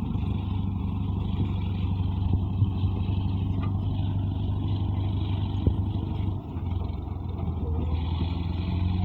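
Caterpillar D8 bulldozer's diesel engine running steadily with a low hum, with a couple of sharp clanks partway through.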